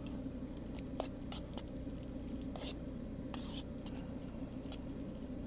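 Hcalory diesel air heater running with a steady hum, while a few short clicks and rustles of handling come over it.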